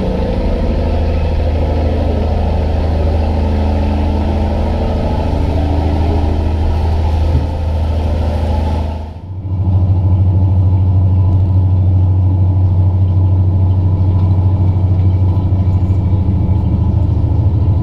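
A riverboat's engines droning steadily with a deep hum, heard on deck, under a rush of wind and water. About halfway through the sound cuts to a louder, deeper engine drone with far less hiss.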